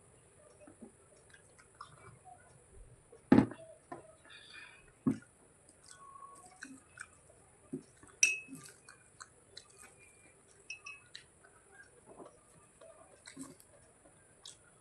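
Close-miked chewing and mouth sounds of someone eating, with scattered small crunches and clicks. There are a few sharper knocks, the loudest about three and a half seconds in, and a brief ringing clink about eight seconds in.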